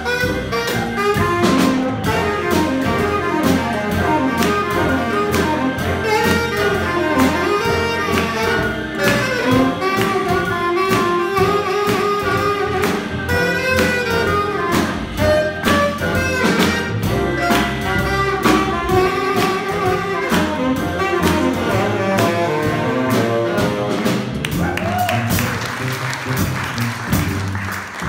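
Jazz combo playing a blues: a saxophone solos over walking upright bass, piano and keyboard, and a drum kit with cymbals.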